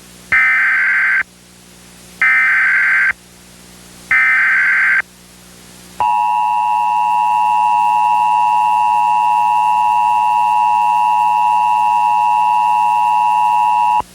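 Emergency Alert System tones: three SAME digital header bursts, each a screeching data squawk about a second long, encoding a Civil Emergency Message alert. About six seconds in, the steady two-tone EAS attention signal starts and holds for about eight seconds.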